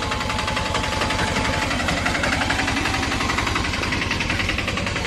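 Piaggio Ape three-wheeler auto-rickshaw's engine running steadily with a rapid, even chug.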